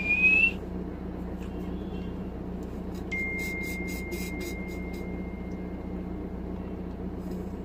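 Steady low hum inside a parked car's cabin, with soft sucking sounds as coconut water is sipped through straws a few seconds in. A faint, thin high tone holds through the middle.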